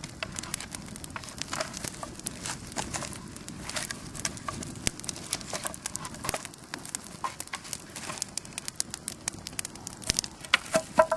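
Wood campfire crackling and popping in a dense, irregular patter of small snaps, with a few louder pops and knocks near the end.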